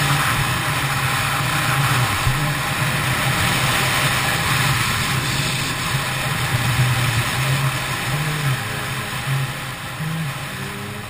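Kawasaki ZX-10R's inline-four engine running at a steady cruise under heavy wind rush, the overall sound easing off and getting quieter over the last few seconds as the bike slows.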